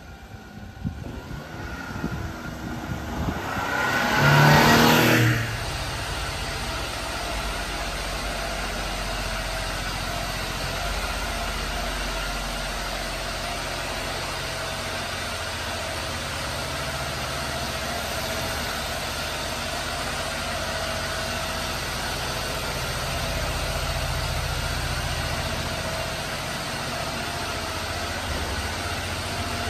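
Suzuki Carry mini truck's three-cylinder engine. It rises in pitch and loudness to a brief rev peaking about four to five seconds in, then idles steadily.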